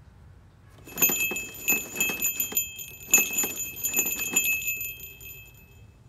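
Small jingle bell on top of a bird trap's pole ringing in a rapid irregular jangle for about four and a half seconds, starting about a second in, as the pole is shaken.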